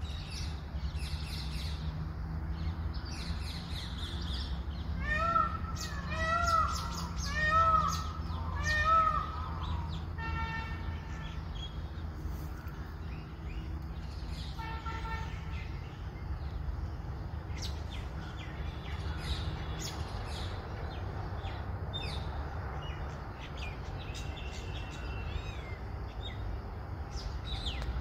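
Birds calling and chirping, with a run of four loud, arching calls roughly a second apart about a fifth of the way in. A steady low rumble underneath.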